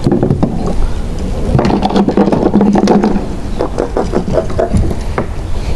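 Handling noise from a kayak angler working a rod: a steady low rumble with many small, irregular knocks and scrapes against the plastic hull and gear.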